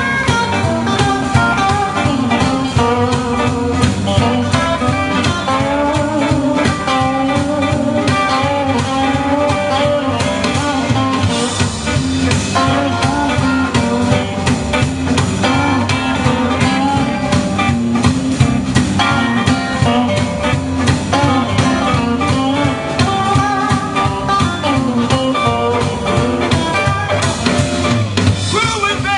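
Live blues band playing an instrumental stretch: electric guitars over a drum kit, with a lead guitar line of bending notes.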